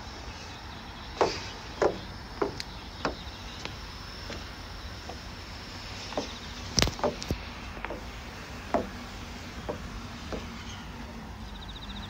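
Footsteps, about two a second in two runs, with one sharper knock near the middle, over a faint steady outdoor background.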